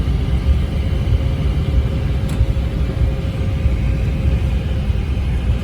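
Airliner cabin noise after landing: a steady low rumble with a faint steady hum above it, as the jet taxis toward the gate.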